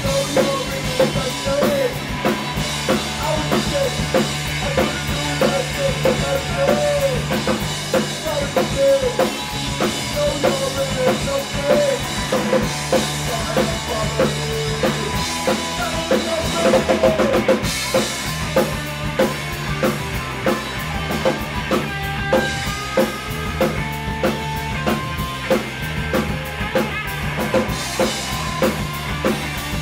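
Rock band playing live: a full drum kit with kick and snare keeps a steady beat under electric guitar and bass.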